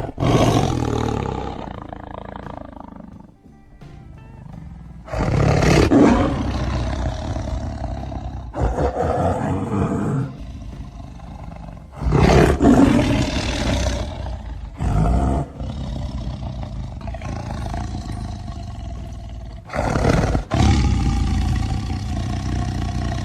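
Tiger roaring: a series of loud roars, each rising fast and fading over a second or two, a few seconds apart, over background music.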